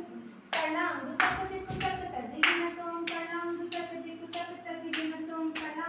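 A series of sharp beats kept in rhythm for classical dance, about two a second with uneven spacing, each followed by a short metallic ring. Under the beats, a voice sings or chants held notes.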